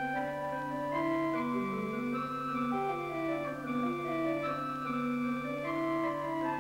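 Church pipe organ playing slow polyphonic music: several lines of held notes move in steps at once over a steady low tone.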